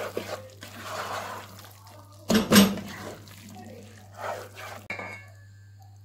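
A spoon stirring thick, moist aloo qeema (minced meat and potato curry) in a non-stick pot: irregular wet stirring and scraping strokes, the loudest a sharp scrape or knock about two and a half seconds in, over a steady low hum.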